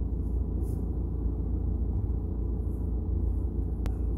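Steady low rumble of a car's engine and cabin while it idles in stopped traffic. There is one sharp click near the end.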